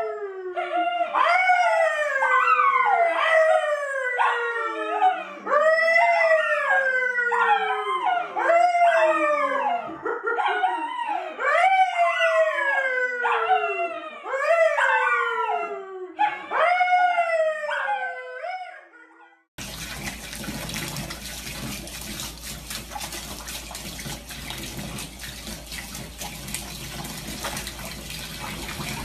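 A man and a brown poodle howling together, a long run of rising and falling howls one after another. About two-thirds of the way in the howling stops, and steady running water follows, splashing into a bathtub with a dog lying in it.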